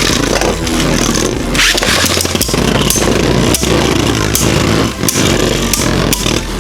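Two Beyblade Burst spinning tops whirring and grinding against each other and the plastic stadium, with repeated sharp clacks as they collide.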